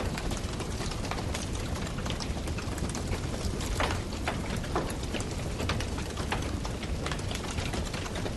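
Fire crackling: many sharp snaps and pops over a steady low rushing noise, a few louder pops near the middle.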